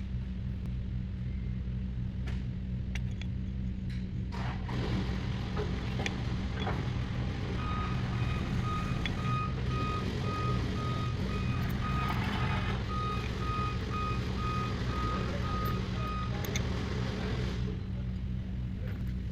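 Truck engine running steadily, with a reversing alarm beeping about twice a second from about eight seconds in until about sixteen seconds in.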